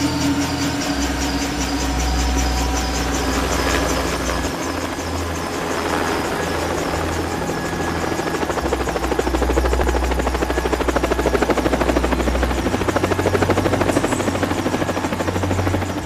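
Helicopter flying: a steady rotor chop, a rapid even beat that grows more pronounced in the second half as it flies away.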